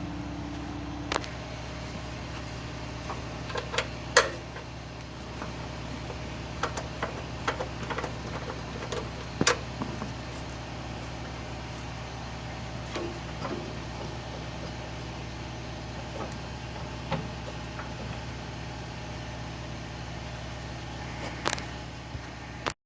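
Scattered clicks and knocks of hand tools and metal parts as a snow blower's belt guard is unbolted, the loudest about four seconds in and again a few seconds later, over a steady low hum.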